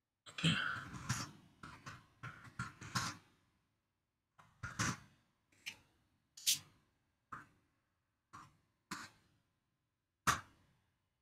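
Computer keyboard being typed on: a quick run of keystrokes in the first three seconds, then single keystrokes roughly a second apart.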